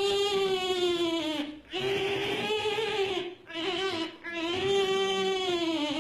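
High-pitched baby-like crying: about four long, drawn-out wails, each around a second and a half and falling slightly in pitch at the end, with short catches of breath between them, as of a hungry infant crying.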